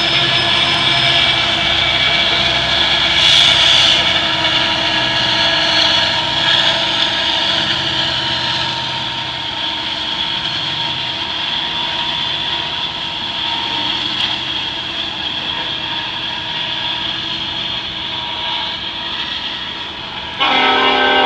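Diesel-hauled freight train rolling past, loudest in the first few seconds as the locomotive goes by, then a steady rumble of the following cars that slowly fades. Guitar music cuts in suddenly near the end.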